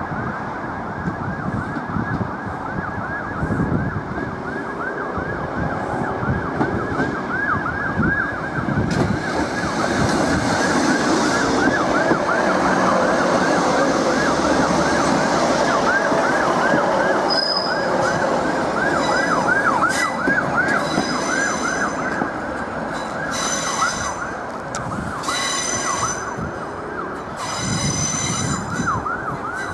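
Class 156 Sprinter diesel multiple unit creeping along the curved platform track, its wheels squealing with a rapid warbling wail over a low rumble. In the last few seconds, as it draws to a stand, shorter high-pitched squeals come in bursts of about a second.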